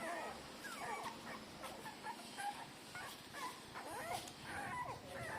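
A litter of three-day-old newborn puppies squeaking and whimpering in many short, overlapping high chirps while they nurse from their mother.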